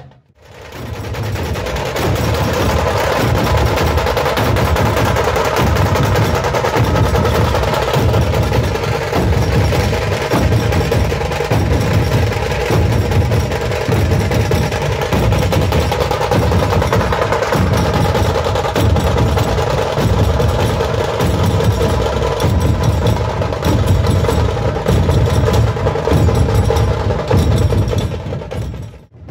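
Dhol-tasha drumming: large barrel-shaped dhol drums beating a steady, loud rhythm, with sharp cracking strokes over it. The drumming fades in at the start and fades out near the end.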